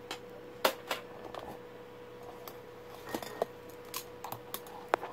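About ten irregular sharp clicks and taps from small electronic parts and tools being handled on a workbench, the loudest about two-thirds of a second in and near the end, over a faint steady tone.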